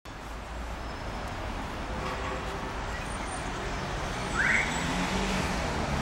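Steady road traffic noise with a low rumble, growing slightly louder, and one short rising high chirp about four and a half seconds in.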